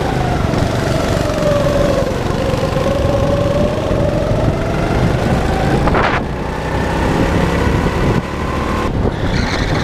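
Go-kart engine heard from on board, its note dipping as the kart slows and then climbing steadily as it accelerates. A short sharp noise breaks in about six seconds in.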